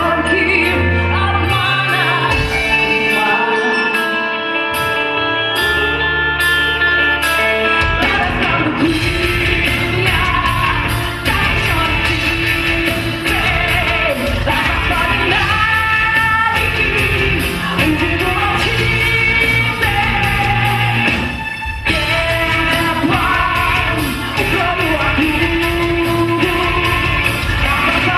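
A rock band playing live, a woman singing lead over keyboards, bass, guitar and drums. Held keyboard and bass notes carry the first several seconds, and the full drum beat comes in about eight seconds in.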